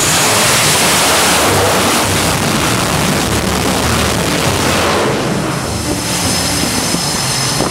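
Fighter jet engines at full power with afterburner during a night catapult launch from an aircraft carrier deck: a loud, steady roar that eases slightly about five seconds in.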